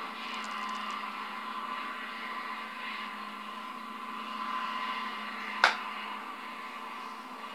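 Small electric motor of a scratch-built N gauge model track tamper whirring steadily as it runs, with one sharp click about five and a half seconds in.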